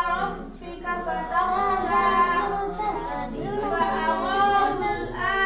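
A child's voice chanting Quran recitation in a melodic style, with long held notes that bend in pitch.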